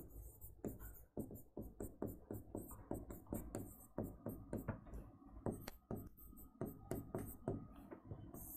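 A pen writing on an interactive display board: faint, irregular taps and short scratches, a few every second, as capital letters are drawn.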